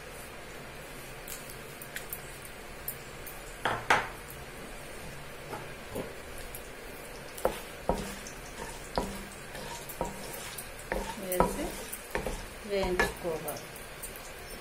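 Tempering spices (dried red chillies, garlic, lentils and seeds) sizzling softly in hot oil in a non-stick kadai. A wooden spatula stirs them, with scattered knocks and scrapes against the pan; the loudest knock comes about four seconds in.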